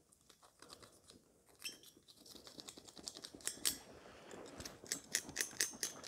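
Small clicks and light rustling of gear being handled, quiet at first and getting busier about a second and a half in.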